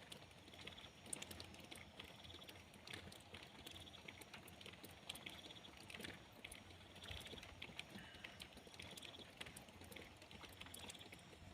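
Faint rain, with scattered drips and taps and short buzzy chirps repeating every second or two.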